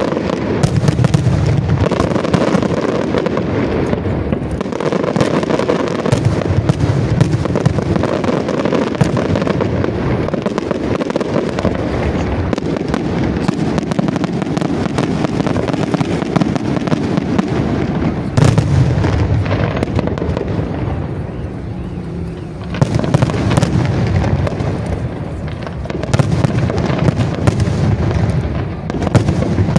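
Fireworks display: aerial shells launched and bursting in rapid, continuous succession, booms mixed with crackle. The barrage eases briefly about two-thirds of the way through, then picks up again.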